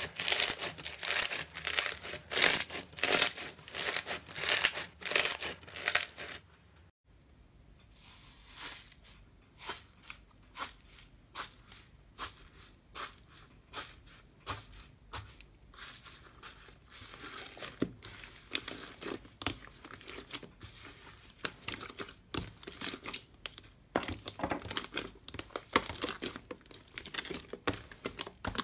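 Hands squeezing and pressing fluffy slime, making rapid crackling, tearing squishes with several strokes a second. About seven seconds in it cuts off suddenly. The crackling returns much quieter as the slime is pulled apart and torn, then grows louder again near the end.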